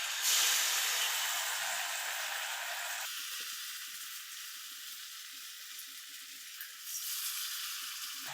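Batter-coated plantain pieces sizzling in hot oil as they deep-fry. The sizzle jumps as a piece goes in at the start, then slowly dies down, with a smaller flare-up near the end.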